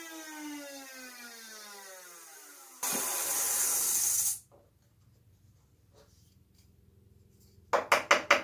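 A router in a router table spinning down after being switched off, its whine falling steadily in pitch. This is followed by a loud hiss lasting about a second and a half that cuts off suddenly. Near the end come a quick run of sharp taps as the workpiece is handled.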